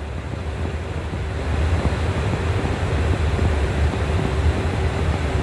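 Steady rush of airflow and engine noise inside an Airbus airliner's cockpit in flight, a deep rumble with a faint steady hum, growing slightly louder.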